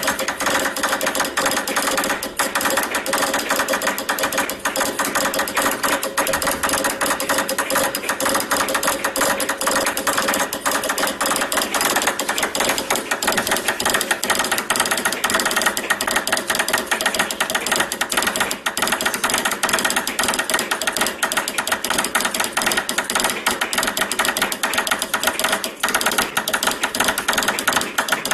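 A Morse code key tapped at very high speed: a fast, continuous run of mechanical clicks with no pauses.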